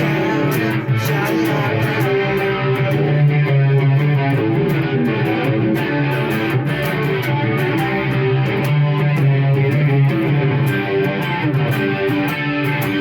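Electric guitar played through a Marshall MG100HDFX amp head, a steady hard-rock part with strummed chords and picked notes.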